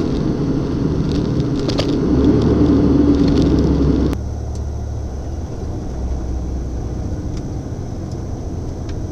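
Lorry engine and road noise heard from inside the cab while driving: a steady low rumble that drops abruptly to a quieter, thinner drone about four seconds in.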